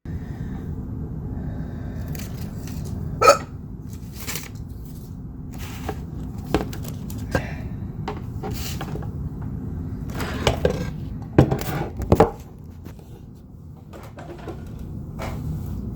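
A person hiccupping about ten times at uneven intervals, each hiccup short and sharp, over a steady low hum.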